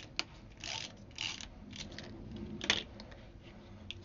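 A hand-held tape runner rolling adhesive onto paper: its little gear mechanism whirs in several short strokes, the loudest a little under three seconds in, with paper rustling as the pieces are pressed down.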